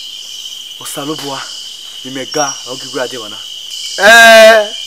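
Crickets chirping steadily in a night-time scene, with a few quiet spoken words in the middle. About four seconds in, a man gives a short, loud exclamation.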